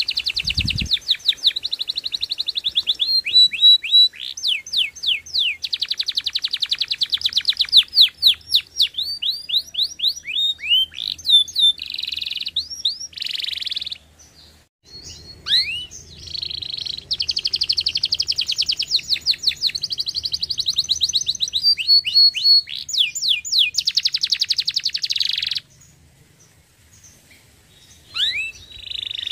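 Domestic canary singing: long, very fast trills and rolls mixed with quick rising and falling sweeps. The song breaks off briefly about halfway through and for a couple of seconds near the end before starting again.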